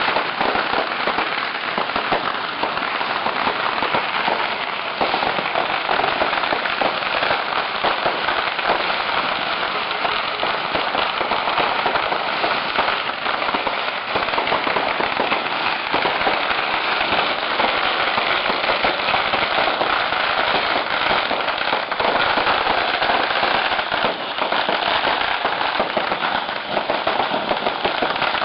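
Firecrackers going off nonstop: a dense, steady crackle of countless small bangs packed together without a break.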